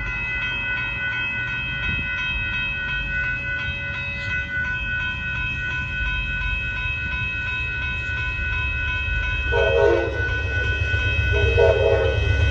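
Amtrak passenger train approaching a road grade crossing: the crossing warning bell rings steadily over a low rumble that grows louder as the train nears, and the locomotive's horn sounds two short blasts near the end.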